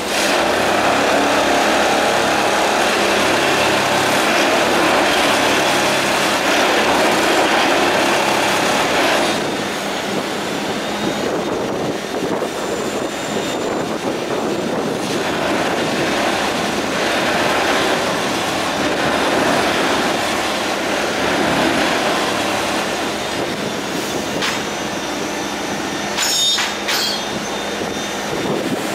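Multiple tie tamper track machine at work: a loud, dense mechanical din from its engine and tamping gear, easing somewhat about nine seconds in, with a few sharp metallic clanks near the end.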